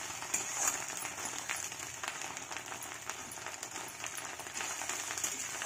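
Fish roe frying in hot oil in a metal kadai: a steady sizzle with many small crackles, stirred with a metal spatula.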